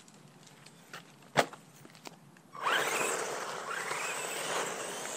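A single sharp knock about a second and a half in, then from about two and a half seconds in the Bezgar 4x4 1/12-scale RC truck's electric motor whines as the truck accelerates away over asphalt. The whine rises and falls in pitch over a rush of tyre noise and grows a little quieter as the truck moves off.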